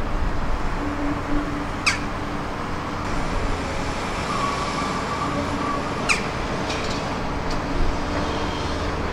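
Liebherr 946 excavator working on a house demolition: its diesel engine running steadily under load, with short whining tones from the hydraulics coming and going. A few sharp cracks from breaking material, the clearest about two seconds in and about six seconds in.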